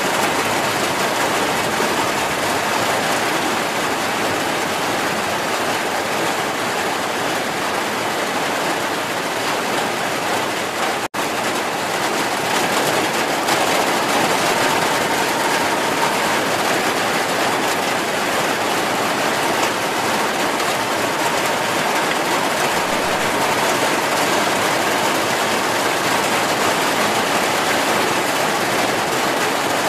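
Steady heavy rain, an even unbroken hiss, that cuts out for a split second about eleven seconds in.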